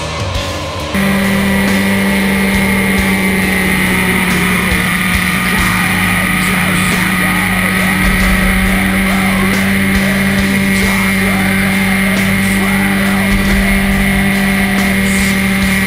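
Rock music for about a second, then a sudden cut to a motorcycle engine holding a steady drone at highway cruising speed, with wind noise over a camera mounted on the bike.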